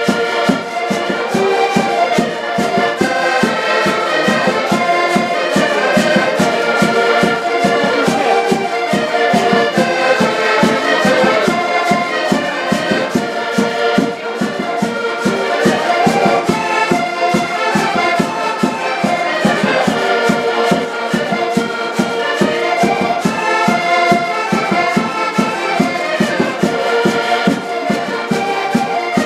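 A group of accordions playing a traditional Portuguese dance tune together, with a steady, even beat.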